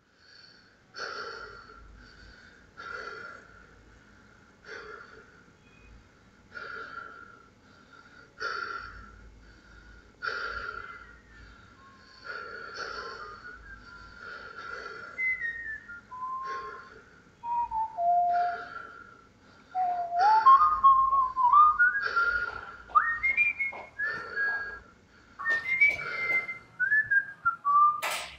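Whistling: at first one breathy note repeated about every two seconds, then from about halfway a tune of gliding notes stepping up and down, growing louder.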